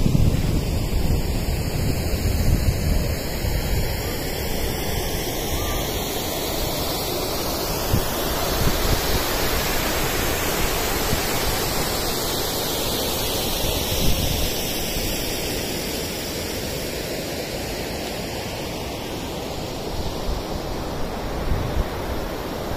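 Steady rushing of water falling down a 70-foot waterfall.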